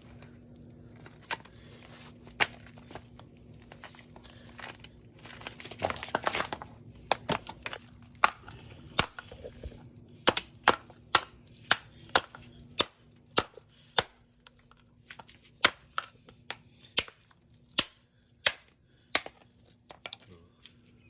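Sharp metal-on-metal taps, struck by hand about two a second with a metallic ring, driving a tool against a seized thermostat housing screw to break it loose. Before the tapping settles into a steady run there are a few scattered clicks and a rustle.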